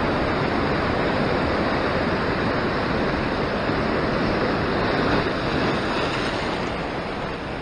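Ocean surf washing over a rock ledge in foaming whitewater, a steady rush that swells a little about five seconds in, then eases off.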